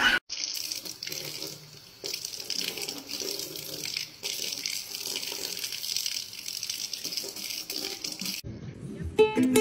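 Kitchen faucet running a thin, steady stream that splashes into a stainless-steel sink.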